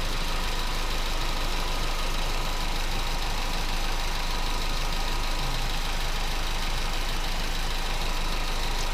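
Vauxhall Astra 1.4 petrol engine idling steadily, fully warm. The owner suspects a slightly lazy hydraulic lifter, which makes the engine noisy on startup but not once it is warm.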